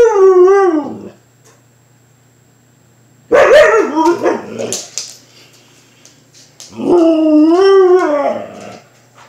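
Siberian husky "talking": three drawn-out vocal calls, each about one and a half to two seconds long, whose pitch wavers up and down.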